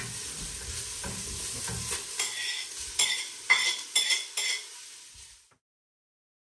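Onions, garlic and freshly added grated carrots sizzling in olive oil in a hot pot while being stirred. The stirring utensil knocks against the pot about five times with a short metallic ring. The sound cuts off suddenly about five and a half seconds in.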